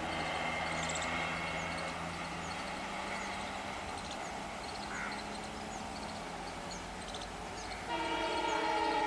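WDP-4B diesel-electric locomotive running on the move, its engine humming steadily under rail noise after a horn blast cuts off at the start. About eight seconds in, its multi-tone air horn sounds again, loud.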